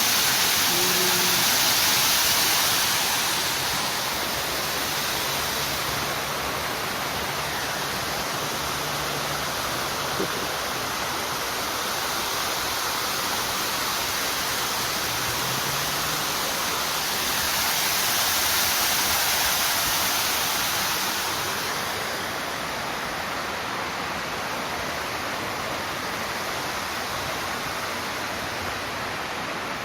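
Steady rush of flowing water, like a stream or small waterfall, swelling louder near the start and again about two-thirds of the way through.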